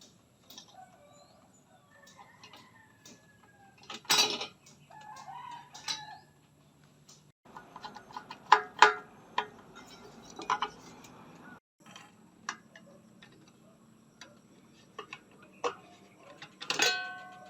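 Chickens clucking, and a rooster crowing briefly near the end, among scattered sharp clicks and knocks.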